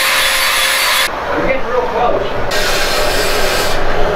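Welding arc crackling and hissing as a cover pass is laid on a steel exhaust pipe. It sounds in two stretches: the first stops about a second in, and the second starts about two and a half seconds in and stops just before the end.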